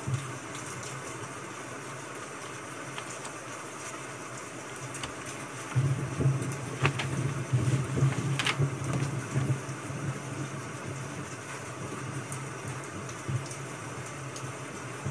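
Pages of a spiral-bound exam booklet being flipped over on a wooden book stand, with low handling bumps and a couple of sharp paper snaps, about six to eleven seconds in. A steady hiss runs underneath.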